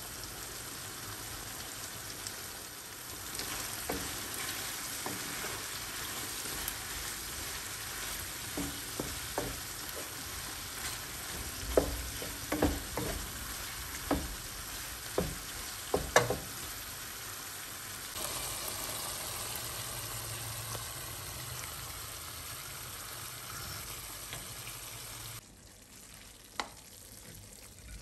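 Chicken strips with cherry tomatoes and olives sizzling in a frying pan, stirred with a wooden spatula that knocks against the pan several times in the middle stretch. The sizzle cuts off near the end, leaving a few knocks.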